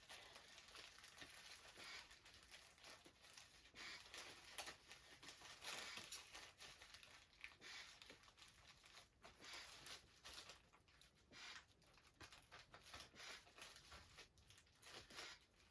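Faint, scattered rustling and small clicks of a bag of potatoes being handled and closed up.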